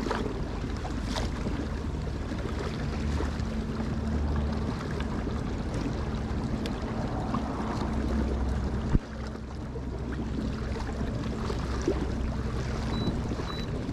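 Water rushing and lapping along a fishing kayak's hull as it cruises under power, with a faint steady hum. A single sharp knock sounds about nine seconds in.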